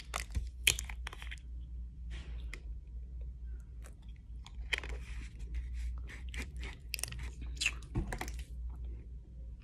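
Disposable plastic water bottle being handled: the screw cap is twisted open with a quick run of clicks about half a second in, then the thin plastic crinkles and crackles in several short bursts while it is drunk from.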